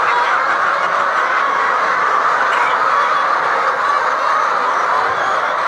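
A large flock of chickens in a poultry house: a steady din of many birds calling at once, with no single call standing out.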